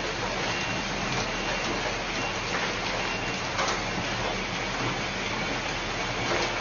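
Hail pelting the ground and street: a dense, steady hiss of countless small impacts, with a couple of louder hits about three and a half seconds in and near the end.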